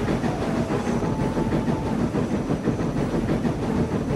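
Train running: a steady clattering rumble with hiss, and a faint high tone held for about a second and a half near the start.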